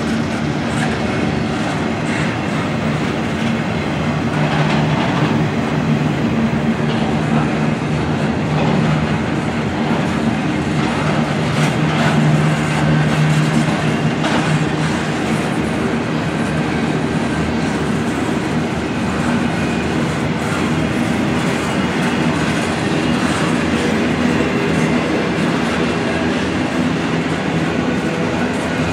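Double-stack intermodal container train rolling past: a steady rumble and clatter of steel wheels on the rails as the loaded well cars go by.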